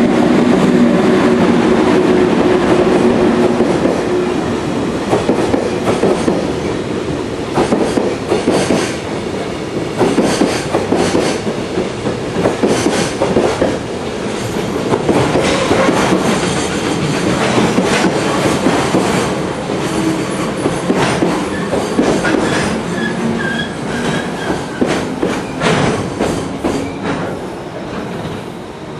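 A freight train passing at speed: an electric locomotive's hum for the first few seconds, then a long string of container wagons rolling by, wheels clacking steadily over the rail joints, with a brief wheel squeal about three-quarters of the way through.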